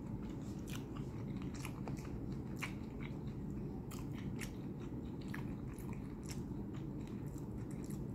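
A person chewing cooked shrimp close to the microphone: irregular wet mouth clicks and smacks, over a steady low hum.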